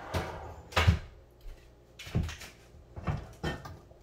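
Several separate clunks and knocks of things being handled in a kitchen, about a second apart, like cupboard doors and containers being moved.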